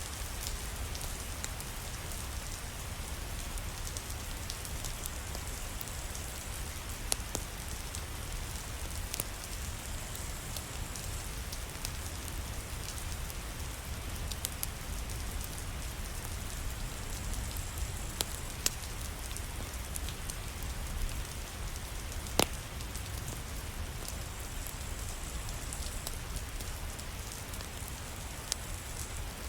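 Steady rain, with a few sharp, isolated pops from a crackling fireplace fire.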